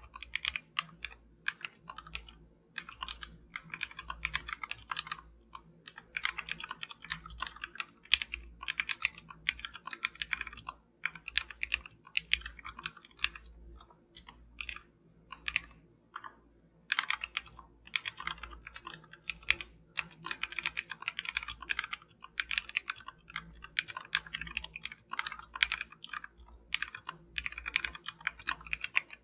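Typing on a Royal Kludge RK71 mechanical keyboard with XDA-profile keycaps: quick runs of keystrokes with short pauses between bursts.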